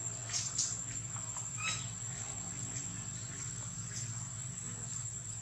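Steady high-pitched drone of insects in the forest, with a few brief chirps, the clearest about a second and a half in.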